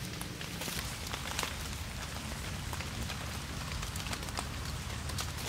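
Close crackling and rustling of dry leaf litter and gloved hands as a mushroom is picked and trimmed with a knife. Many small irregular clicks over a steady hiss.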